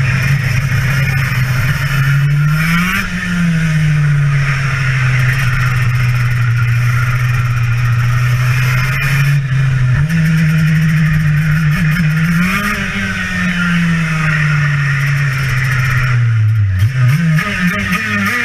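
TM KZ10B 125cc two-stroke shifter kart engine at racing speed, heard onboard, its note sweeping up and down through the corners. The pitch jumps suddenly about ten seconds in, and near the end it drops sharply and climbs again.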